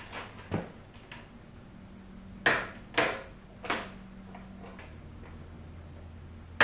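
Torque wrench clicking several times on the motorcycle's headlight mounting bolts as it reaches its set 15 ft-lb; single sharp metallic clicks, the loudest about two and a half and three seconds in.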